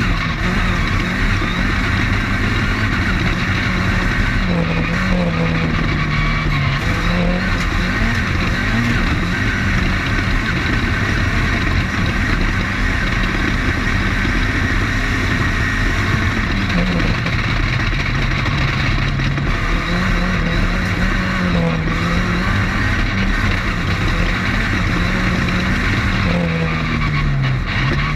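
Off-road race car's engine running hard, heard from onboard over a constant din of noise; its pitch rises and falls again and again with throttle and shifts.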